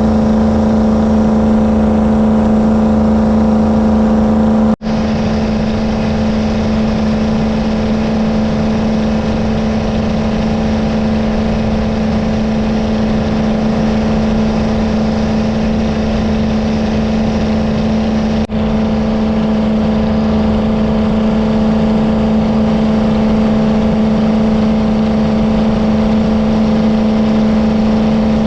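Jet boat engine running at a steady speed with an unchanging drone. The sound cuts out for an instant twice, about five seconds in and again near eighteen seconds.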